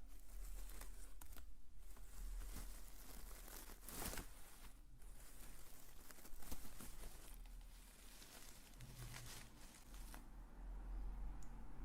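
Crinkling and rustling of a crinkly material handled close to the microphone as an ASMR trigger, a steady run of fine crackles that thins out about ten seconds in.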